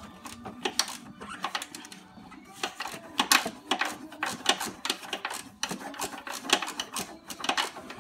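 Hand ratchet wrench clicking in irregular runs, with metal taps, as the nuts on a strut's top mount are loosened. The loudest clicks come about three seconds in.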